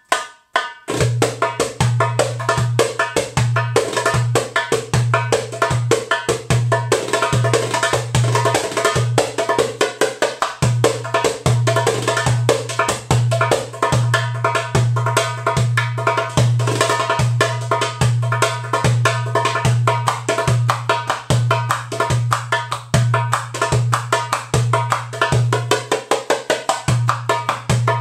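Gawharet El Fan darbuka (Egyptian goblet drum) played fast by hand. Deep low dum strokes return at a steady pulse, with rapid, crisp strokes at the rim filling the space between them. The playing starts about a second in.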